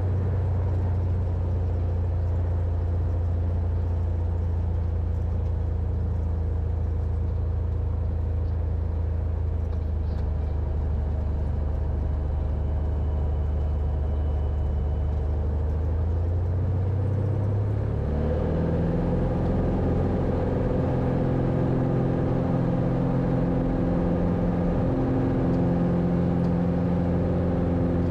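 Cessna 182's six-cylinder piston engine and propeller, heard from inside the cabin, running at a steady low idle while the plane taxis onto the runway. About two-thirds of the way through, the engine climbs quickly in pitch as power is brought up for the takeoff roll, then holds steady at the higher pitch.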